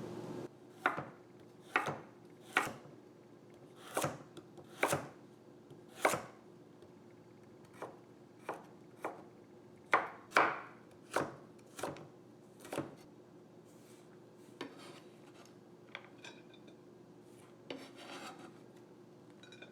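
Knife chopping on a cutting board: single sharp strikes, most about a second apart, lighter and sparser in the last few seconds. A faint steady hum runs underneath.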